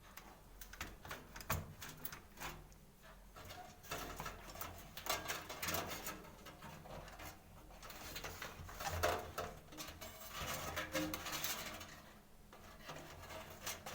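Faint, irregular small clicks and rustles of handling: front-panel cable connectors being pushed onto the motherboard's header pins inside a desktop computer case.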